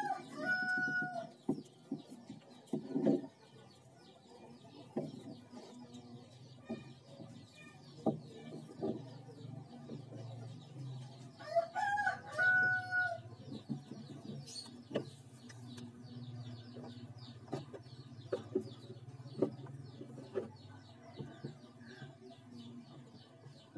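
A rooster crowing twice, once at the start and again about twelve seconds in, each crow rising and then held for about a second. Between the crows come scattered sharp clicks from the caulking gun as silicone sealant is squeezed into the holes, over a faint low steady hum.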